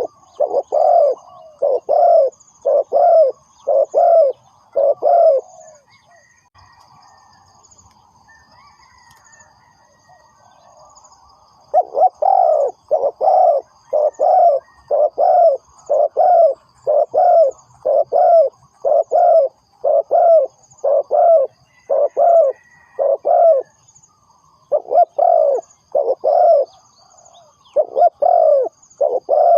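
Spotted dove cooing, its low coo notes coming in quick repeated runs, with a pause of several seconds after the first run and shorter breaks near the end. Faint high chirping of small birds goes on behind it.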